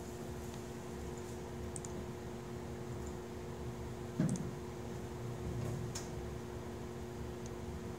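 Steady hum of classroom room tone from fans and ventilation, with a few faint clicks from a laptop being worked and one short low thump about halfway through.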